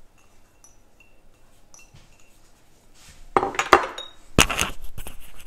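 Metal spoon clinking and clattering against small glass jars and dishes: a few faint clinks at first, then a louder clatter about three seconds in and a sharp knock as the spoon is set down.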